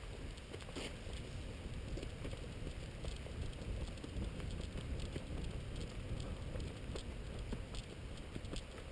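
Fast footsteps on a gravel and grass forest road, a dense crackle of small clicks, over a low rumble of movement on the microphone.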